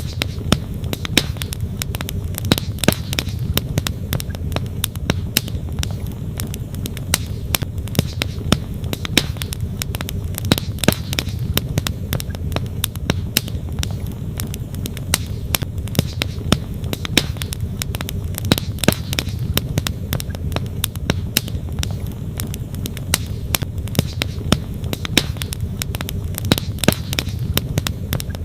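Wood campfire crackling, with frequent irregular sharp pops and snaps, over the steady rush of a flowing stream.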